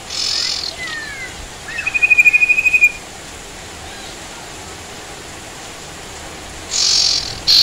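Sirtu bird calling: a short harsh high call, a few sliding whistles, then a fast, even trill of about ten notes in a second. After a pause another harsh high call comes near the end, all over a steady hiss of rain.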